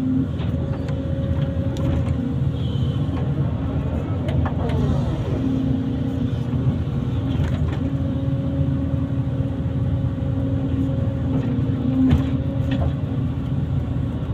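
Kobelco SK140 excavator's diesel engine running steadily at working speed, with a few short clicks and knocks and a brief pitch glide about four seconds in.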